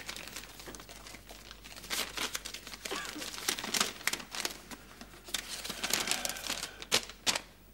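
A paper envelope being torn open and the letter inside pulled out and unfolded: irregular crinkling and rustling of paper.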